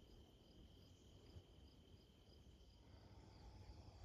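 Faint insect song: a steady high trill with a higher chirp pulsing about three times a second above it.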